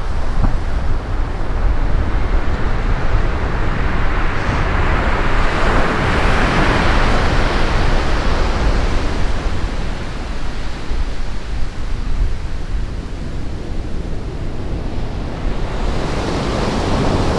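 Surf breaking and washing up a sandy beach, with wind buffeting the microphone in a steady low rumble. The wash swells louder about five to eight seconds in.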